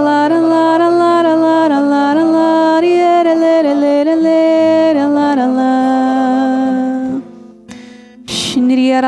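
Worship song: a single voice sings a slow melody in held notes over acoustic guitar, breaking off about seven seconds in and drawing a breath before the next phrase.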